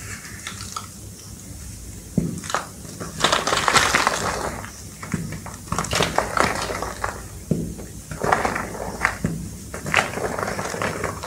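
Reformed gym chalk blocks crunching and crumbling as they are squeezed and broken apart by hand. Faint at first, then repeated bursts of crunching from about two seconds in.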